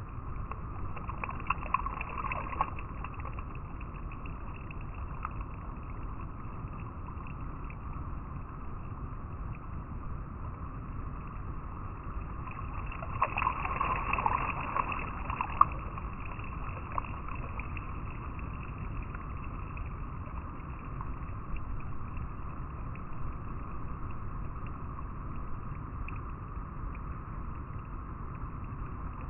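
River water flowing and rippling over rocks, a steady rush with splashier moments about two seconds in and again around the middle.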